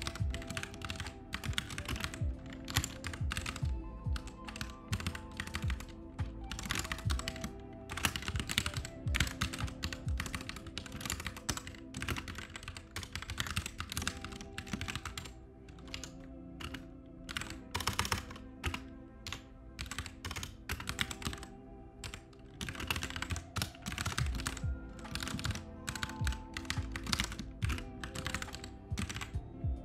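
Computer keyboard being typed on in quick, irregular runs of key presses, with short pauses between runs. Lo-fi background music plays steadily underneath.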